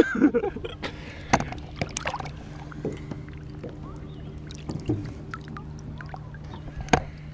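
Lake water sloshing and splashing at a boat's side as a caught fish is lowered by hand into the water and released, with a few sharp knocks and a steady low hum underneath.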